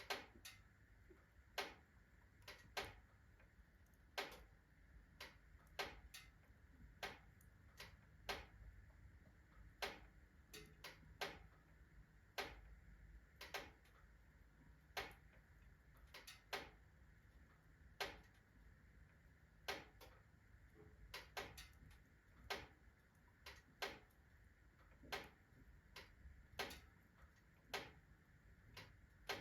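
Iron fireplace stove body ticking and clicking as it expands under strong heat: sharp single clicks at irregular intervals of about a second, some in quick pairs.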